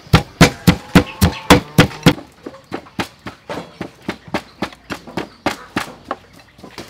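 Stone pestle pounding red chillies, garlic and sugar in a stone mortar, a steady run of about four thuds a second, hardest for the first two seconds and lighter after that.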